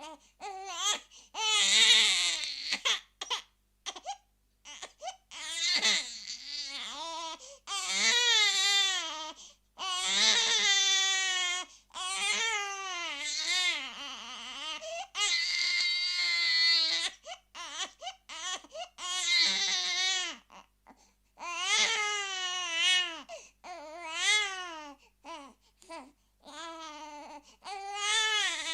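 Infant screaming and crying: a run of loud, high-pitched wails, each lasting one to three seconds with a wavering pitch, broken by short breaths and sobs.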